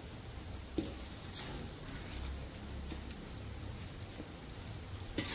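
A few short clicks of a utensil against a cooking pot as fried chicken is spooned into it in layers, over a steady faint hiss.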